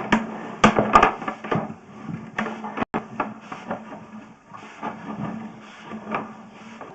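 Sewer inspection camera's push cable being pulled back, with irregular clicks and knocks over a steady low hum.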